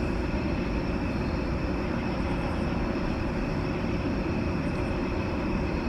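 Steady mechanical drone with a few constant hums running under it, unchanging throughout.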